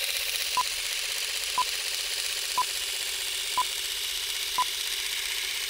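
Film-leader countdown effect: a steady projector whir and hiss with a short beep once a second, five beeps in all.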